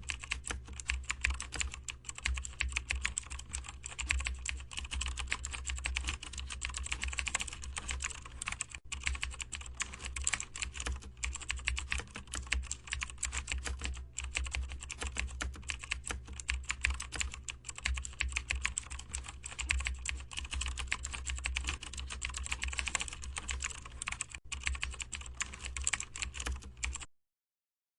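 Computer keyboard typing: rapid, continuous keystrokes over a steady low hum, cutting off suddenly near the end.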